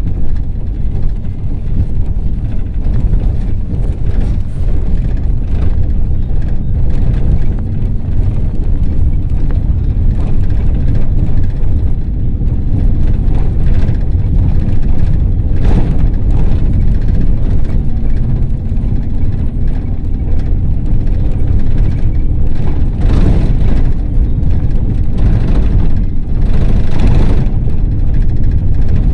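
Ford Transit minibus under way, heard from inside: a steady low rumble of engine and road, with a few short louder bursts of road noise and rattling in the second half.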